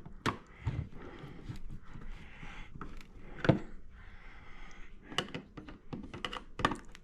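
Phillips screwdriver and plastic smoke detector mounting base being worked at the ceiling: scattered clicks and knocks, with a stretch of faint scraping from the screwdriver in the screws. The loudest knock comes about halfway through.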